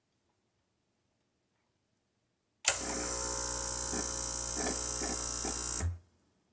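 Breville espresso machine's water pump switched on with its intake tube removed, giving a steady buzz for about three seconds that starts abruptly and cuts off. It is pushing against a blockage, which the owner guesses is a clog further down the lines.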